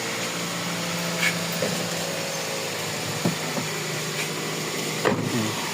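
Toyota Vios four-cylinder petrol engine idling steadily and smoothly after the cylinder 4 ignition coil and injector circuit was repaired: no misfire is left. A few faint clicks sound over the idle.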